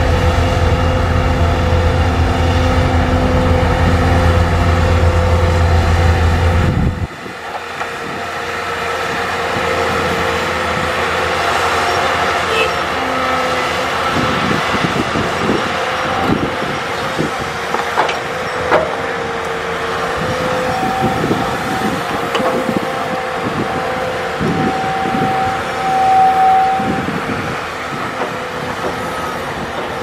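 Caterpillar 320D hydraulic excavator running under load as it digs earth and rock, with a steady engine drone and held tones. A heavy low rumble drops away suddenly about a quarter of the way in. Through the middle and later part come repeated knocks and clanks of the bucket and soil.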